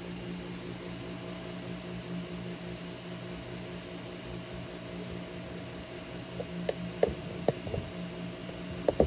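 3D printer running a print: a steady hum of its cooling fans and stepper motors, with a few short sharp clicks and chirps in the last few seconds.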